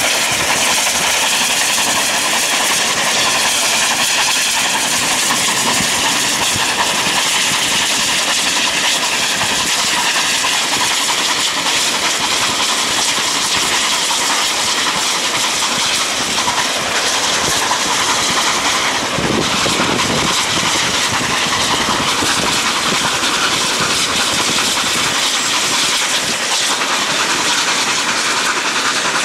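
NSW C36-class steam locomotive 3642 running at speed with its train: a steady hissing rush of exhaust and rolling wheels, heard from a car pacing alongside. A short lower rumble comes in about twenty seconds in.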